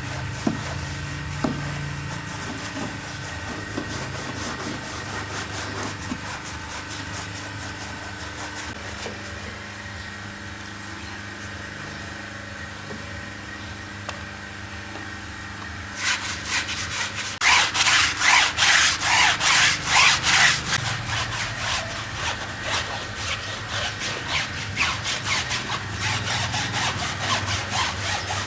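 Stiff brush scrubbing with quick back-and-forth strokes, about three a second, starting a little past halfway and loudest soon after it starts. Before that there is only a steady hum and hiss.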